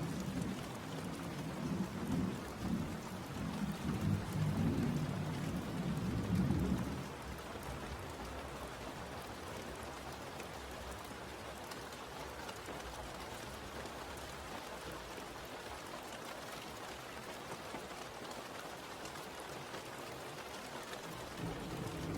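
Steady rain falling, with a low rumble of thunder over roughly the first seven seconds that then dies away.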